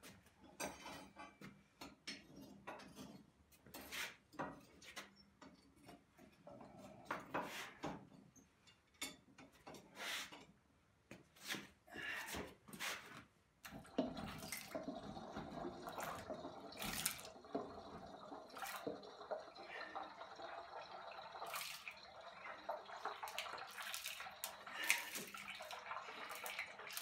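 Scattered clicks and knocks, then about halfway through a hot forged steel rounding hammer head is plunged into a bowl of bacon-grease quench oil. The oil sizzles and crackles steadily, with flames flaring at the surface.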